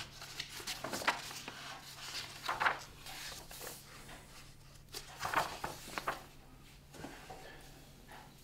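Quiet handling noises: paper rustling and small objects being picked up and set down on a table, a few short soft knocks and rustles spread through, over a faint steady hum.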